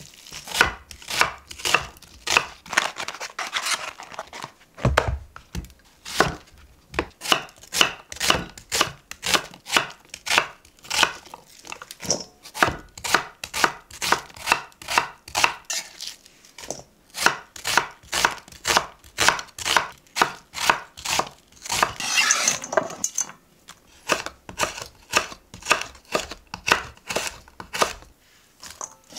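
Chef's knife chopping onion and chili peppers on a wooden cutting board, in steady strokes about two to three a second.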